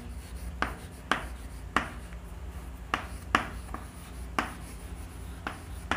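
Chalk writing on a chalkboard: short taps and scratches, about eight strokes at uneven intervals, over a faint low steady hum.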